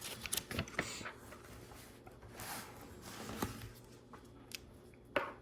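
LEGO Technic pieces being handled: scattered light plastic clicks and short rustles as parts are picked up and fitted.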